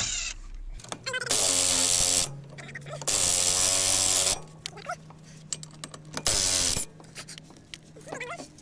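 Cordless impact wrench hammering the rear wheel bolts loose, in three bursts of about a second, a second and a quarter and half a second, with short pauses between bolts.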